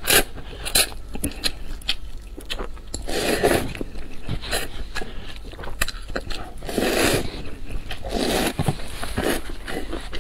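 A person slurping instant noodles from a paper cup with chopsticks, in a few drawn-in slurps of about half a second each, with wet chewing and short sharp clicks and smacks in between.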